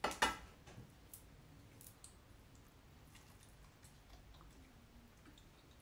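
A chef's knife set down on a wooden cutting board: two sharp clacks a quarter second apart at the start, then only faint scattered clicks.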